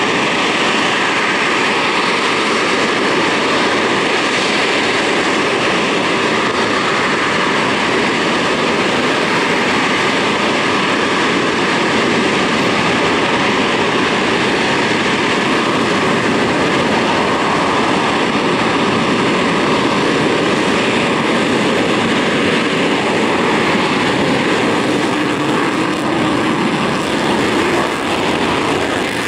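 Panavia Tornado jets' twin RB199 turbofan engines running at high power on the runway: loud, steady jet noise with a steady high whine. Near the end one begins its takeoff roll with afterburners lit.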